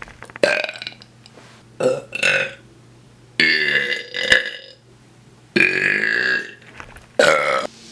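A person belching repeatedly: five separate burps, two short ones, then two drawn-out ones lasting over a second each, then a short one near the end.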